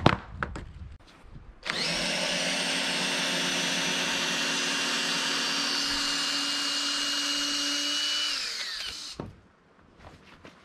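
Cordless drill driving a screw through a tarpaulin into a wooden batten, running at a steady speed for several seconds, then its pitch falls as it slows to a stop. A sharp knock comes just before it.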